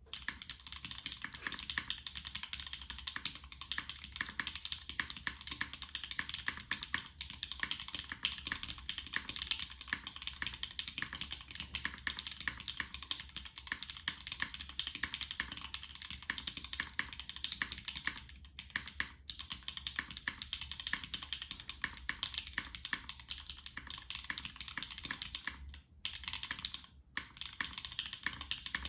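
Continuous typing on a custom zekk.works Ogre mechanical keyboard with lubed Gateron Black Ink linear switches, a UHMWPE plate and GMK Darling keycaps: a fast, even run of key clicks, broken by a few short pauses in the second half.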